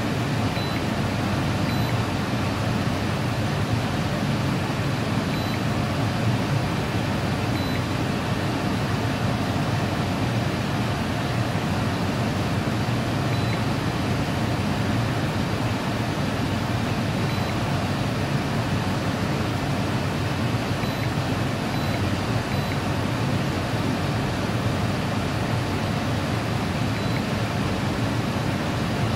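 Steady, even rushing noise with no change or distinct events.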